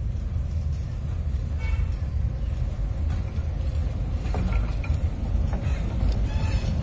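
Miniature train rumbling along its narrow track as it approaches and passes close, growing a little louder near the end, with a few light clicks from the wheels and track.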